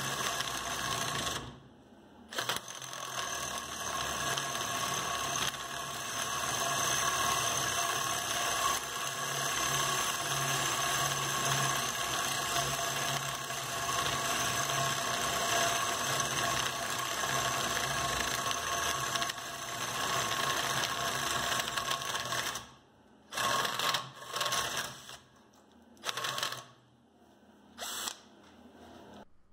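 Hercules 12V cordless drill boring a 1.5-inch hole through a wooden board with a spade bit, a heavy load for a 12-volt drill. The motor runs steadily with a brief stop near the start, cuts out about three quarters of the way through, and is then run in a few short bursts.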